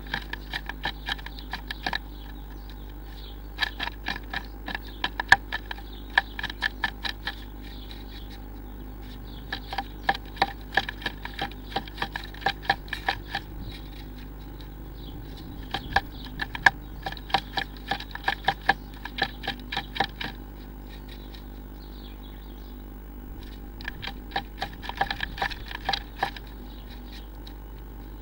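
A blue tit inside a wooden nest box, tapping and scratching at the wood in bursts of rapid sharp clicks with pauses of a second or two between them, over a low steady hum.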